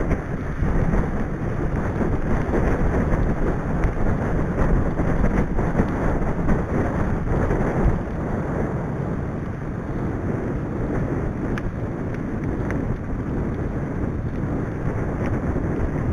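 Wind buffeting the microphone of a camera on a moving mountain bike, a steady low rumble mixed with the bike's tyre noise on tarmac, easing slightly about halfway through.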